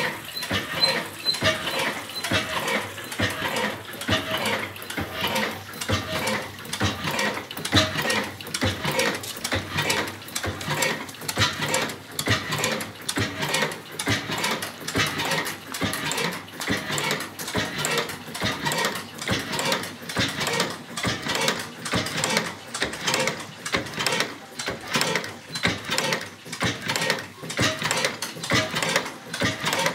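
1912 Hornsby hot-bulb oil engine running steadily, its valve gear and mechanism clattering in an even rhythm of about two to three beats a second.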